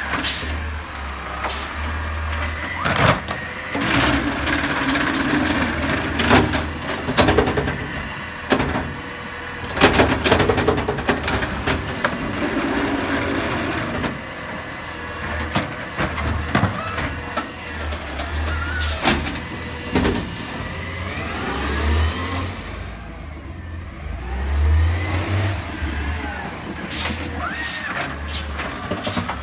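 Autocar ACX garbage truck with a McNeilus ZR automated side-loader arm gripping, lifting and dumping wheeled trash carts. The truck's engine runs throughout and rises and falls in pitch as the hydraulic arm works. A string of sharp bangs and knocks comes from the cart being shaken out over the hopper and set back down.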